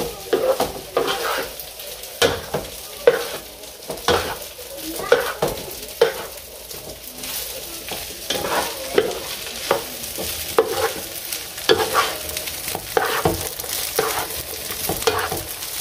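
Rice stir-frying in butter over high heat, sizzling steadily while a wooden spatula scrapes and tosses it around a nonstick pan in irregular strokes, about one or two a second.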